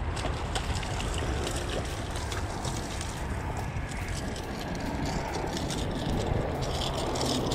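A hooked bluefish thrashing and splashing at the water's surface, with crackling water noise over a steady low background rumble.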